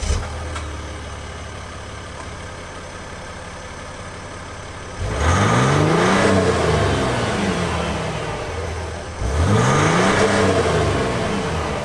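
2020 Ram 1500 Rebel's 3.0-litre EcoDiesel V6 turbodiesel heard at the exhaust tip, idling steadily, then revved twice: about five seconds in and again about nine seconds in, each rev climbing and falling back to idle.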